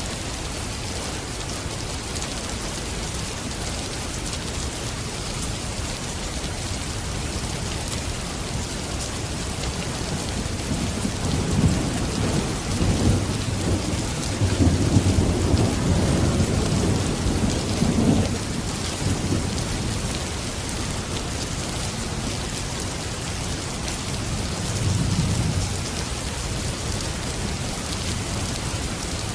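Steady heavy rain with thunder rolling: a long low rumble swells up about eleven seconds in and dies away some eight seconds later, and a shorter, fainter rumble follows near the end.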